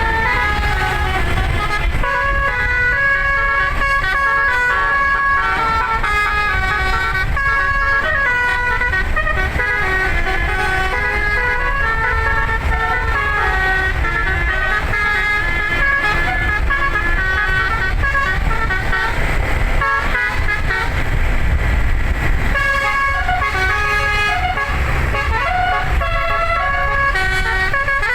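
An 11-note 'Albary' telolet basuri musical air horn playing a melody, one held note after another stepping up and down in pitch, over a steady low rumble.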